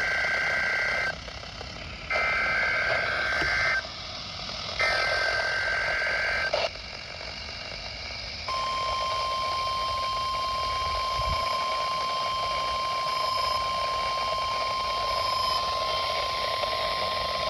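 NOAA Weather Radio test alert over a receiver with background static. It opens with three bursts of SAME digital header data, each a buzzy two-tone warble about a second and a half long, and then, after a short gap, a steady single-pitch warning alarm tone (the 1050 Hz weather radio alarm) that holds to the end. Together they make the signal of a test of the weather radio public warning system.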